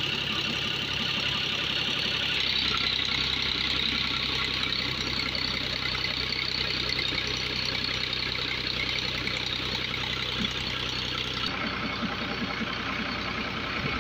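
Fiat 480 tractor's diesel engine running steadily under load, driving a tractor-powered water pump, with water gushing hard out of the pump's outlet pipe. The balance between engine and rushing water shifts abruptly twice.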